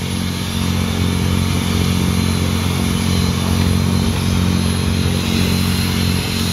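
Motorboat engine running steadily with a low, even drone.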